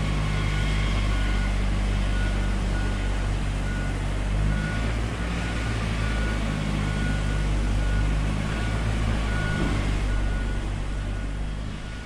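A construction vehicle's engine running steadily while its reversing alarm beeps about once a second; the sound fades near the end.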